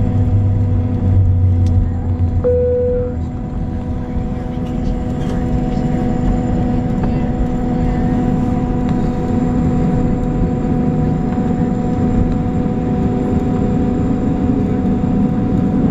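Cabin noise of a Boeing 737-800 taxiing after landing, heard from inside by the window: its CFM56 engines' steady hum at low thrust over the rumble of the tyres on the taxiway. A short single tone sounds about two and a half seconds in.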